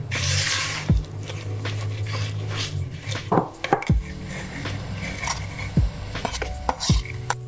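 Kitchen handling sounds: a spatula stirring soft cookie dough in a plastic bowl, then a metal sieve knocked several times while cornstarch is sifted through it, with background music.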